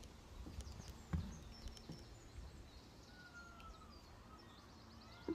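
Faint woodland ambience with a few short bird chirps and one whistled note. Light knocks, then a sharper thump near the end as a man steps down a wooden ladder.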